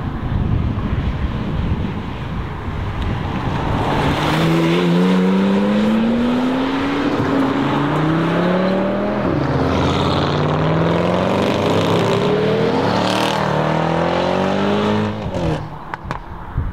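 Audi RS3 sedan with the ABT RS3-R tune, its turbocharged 2.5-litre five-cylinder accelerating hard past, the engine note climbing through the gears with a few quick upshifts. Other cars in the convoy drive past with it.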